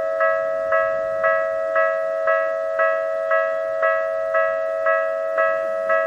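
Japanese railway level crossing's warning bell ringing in an even, unbroken rhythm of about two strikes a second, with a steady tone beneath. It is the crossing signalling an approaching train.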